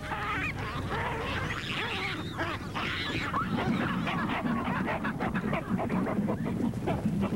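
Baboon troop calling: many overlapping short grunts and barks, with deeper repeated grunts in the second half.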